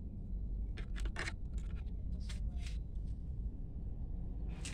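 2.5 mm bonsai wire being handled and bent by a gloved hand: a few short scrapes and clicks, clustered about a second in and again near the end, over a steady low rumble.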